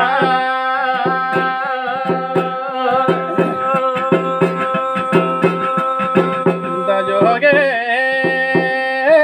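Garhwali jagar folk music: long held melodic notes, wavering at first and then steady for several seconds, over a steady beat of hand-drum strokes.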